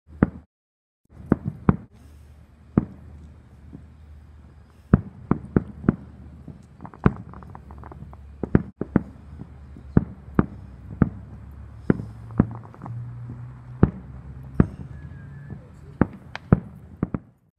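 Aerial fireworks bursting: a long, irregular run of sharp bangs and pops, several a second at times. The sound drops out for about a second just after the start.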